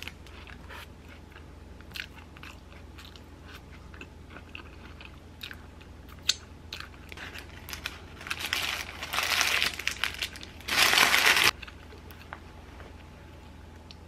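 Small crunchy bites and chewing of a sandwich held in parchment paper, then the parchment paper wrapper being crumpled up, rustling from about eight seconds in, with the loudest crumple a couple of seconds later.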